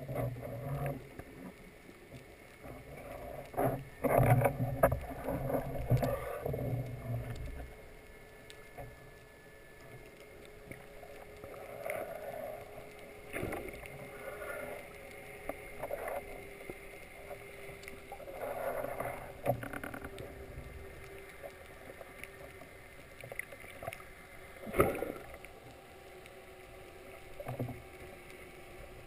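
Muffled underwater sound picked up through a camera housing on a speargun, with scattered knocks and rustles from handling the gun. The loudest knocks come about four seconds in and near twenty-five seconds, and a faint steady hum runs through the middle stretch.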